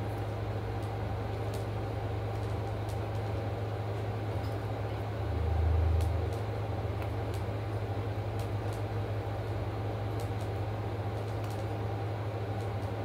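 Steady low mechanical hum of a running machine, with faint clicks from food being handled and eaten. A deeper rumble swells briefly about five to six seconds in.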